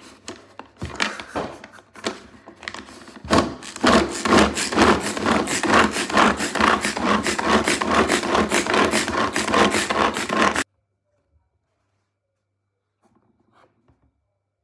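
Manual pull-cord food chopper being worked by hand, its blades spinning and chopping apple chunks in the plastic bowl. A few uneven strokes come first, then a fast run of rapid, even pulls that cuts off suddenly about ten and a half seconds in.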